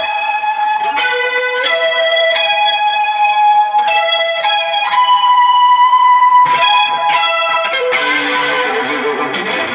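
Electric guitar playing a slow lead line of long, sustained notes, one new note about every second. About eight seconds in, the sound turns denser and rougher, with lower notes underneath.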